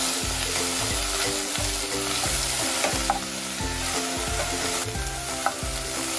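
Beef and onion pieces sizzling as they fry in olive oil in a nonstick pot, stirred with a wooden spatula, with the sizzle going steadily.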